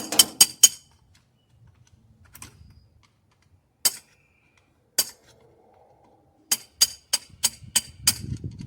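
Metal-on-metal tapping: a hand tool striking a small steel retaining clip on the dryer's parts to knock it loose, sharp clinking taps about four a second. There is a short run at the start, two single taps in the middle, and another run of taps near the end.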